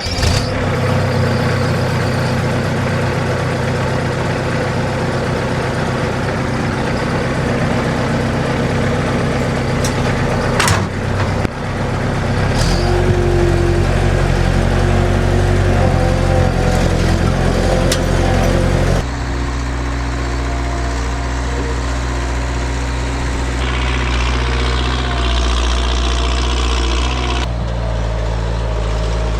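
Bobcat 763 skid steer's diesel engine running steadily while it works, with a couple of sharp knocks about ten seconds in. The engine note changes abruptly several times.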